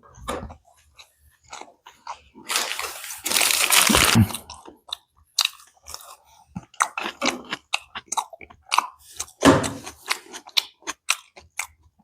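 Close-miked chewing and crunching of fast food in the mouth: irregular wet crackles and bites, with a louder, longer noisy stretch about three seconds in and another loud crunch near 9.5 seconds.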